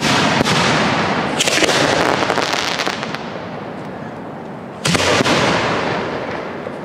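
Professional 1.3G display firework shells bursting overhead: a loud bang at the start, then a dense spell of crackling, and a second loud bang about five seconds in, each fading away.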